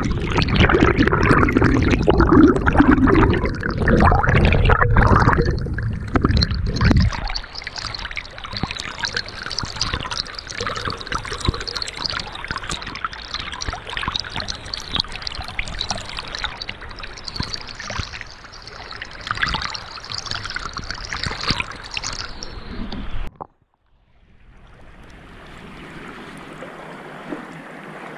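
Small stream's flowing water heard underwater through a GoPro housing. A loud low rumble for the first several seconds gives way to a crackling, fizzing hiss of water and bubbles. It cuts off suddenly about 23 seconds in, and a quieter steady hiss follows.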